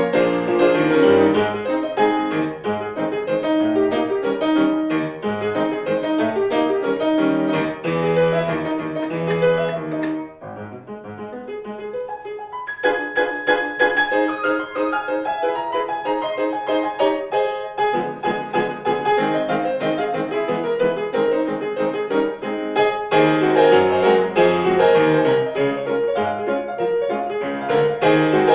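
Background piano music, with a quieter, thinner passage about ten seconds in before the full playing returns.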